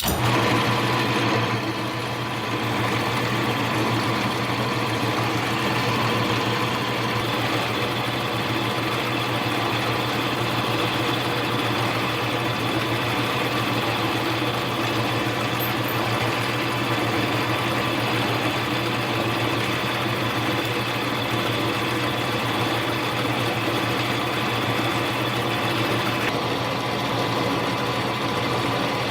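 Mini lathe switching on and running steadily in high gear. Its motor and gear train make an even hum with a steady higher whine, coming on suddenly at the start.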